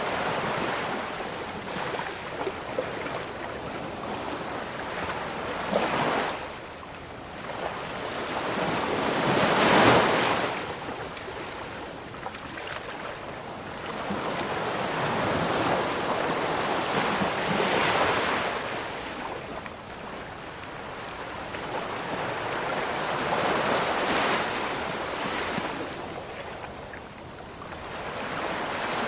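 Ocean waves rolling in and breaking on the shore, the surf swelling and fading every several seconds, with the biggest wave about ten seconds in.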